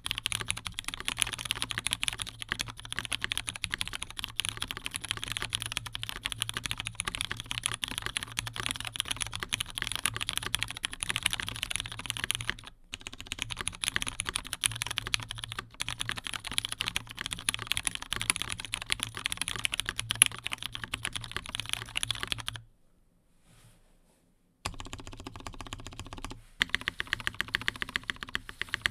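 Fast continuous typing on an Omnitype Bauer R2 custom mechanical keyboard with a polycarbonate build, Brown tactile switches, GMK keycaps and no case foam: a dense run of key clacks. The typing stops for about two seconds roughly three quarters of the way through, then starts again.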